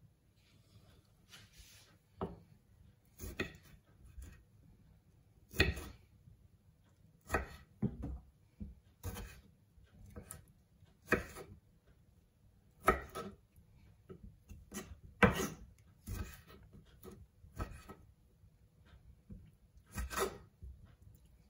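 Kitchen knife cutting cherry tomatoes in half on a wooden chopping board: the blade knocks on the board at uneven intervals, about once every one to two seconds.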